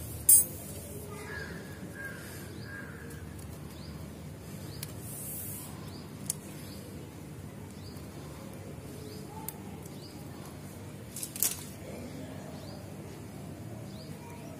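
Plastic craft wire handled while it is knotted, with a few small clicks, a sharp rustle just after the start and a sharp click about 11 seconds in, over a steady low hum. A few faint bird calls come in the first few seconds.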